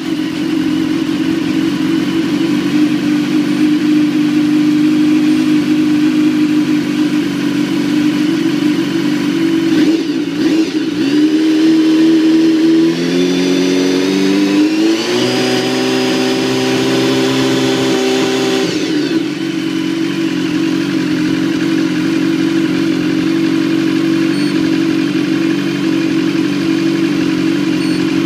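BMW S1000RR inline-four engine idling just after a cold start. About twelve seconds in, its speed climbs in steps and is held higher for a few seconds, then drops back to idle about nineteen seconds in.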